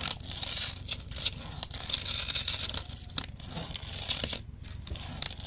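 Small plastic toy airplanes being pushed and rolled across a wooden board by hand: a noisy whirring scrape of their little wheels and gears, with frequent small clicks of plastic knocking.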